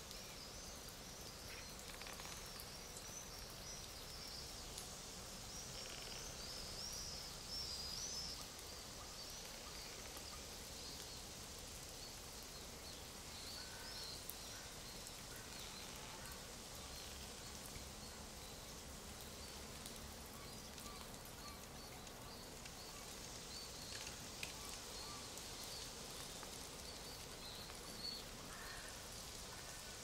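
Forest ambience: a soft, steady background hiss with many small, high bird chirps and twitters over it, busiest in the first several seconds and again towards the end.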